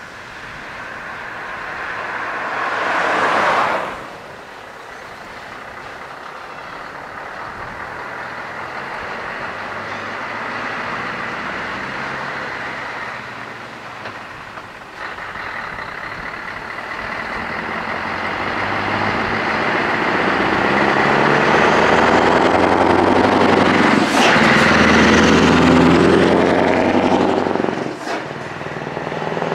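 A car drives past about three seconds in. Then a Scania V8 R500 tanker truck with an open, straight-through exhaust pulls up and accelerates past, its V8 note building steadily and loudest near the end, with brief sharp hisses or clicks as it goes by.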